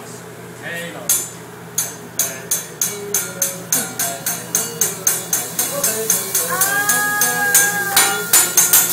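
Teppanyaki chef's metal spatula and utensil clanging on the griddle in a steady beat, about three strikes a second, quickening and growing louder toward the end.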